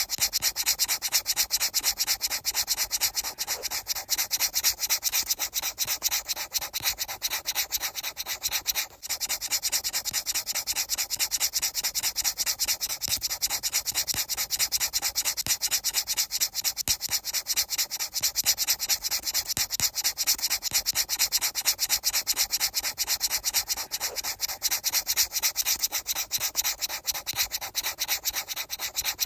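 Fast, even, continuous rubbing or brushing strokes, with a short break about nine seconds in.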